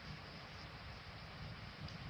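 Faint, steady hiss of rain falling on the street, with an uneven low rumble underneath.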